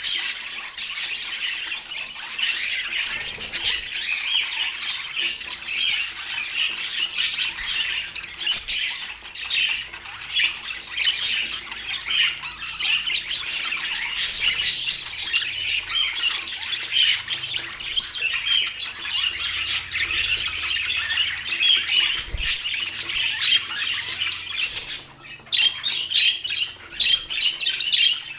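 Budgerigars chattering continuously in dense, overlapping warbles and chirps, with a brief lull near the end.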